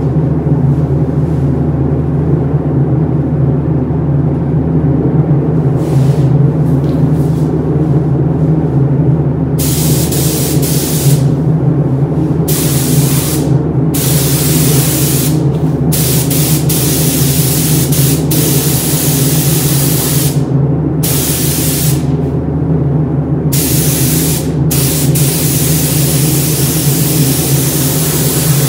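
Air spray gun hissing in repeated bursts, starting and stopping as the trigger is pulled and released, over a steady low hum. The first hiss comes about a third of the way in, and the last burst runs on nearly unbroken.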